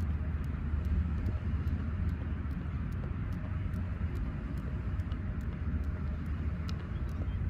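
Skipping rope ticking against the rock underfoot about twice a second, each turn of the rope a light sharp tick, over a steady low rumble of wind on the microphone.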